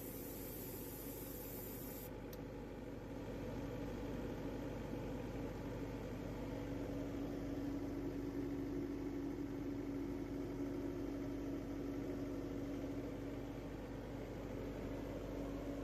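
The generator-compressor set's Deutz four-cylinder diesel engine running at a steady speed, a constant drone over a low hum, growing a little louder about three seconds in.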